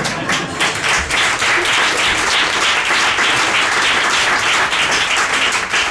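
A live audience applauding: dense, steady clapping.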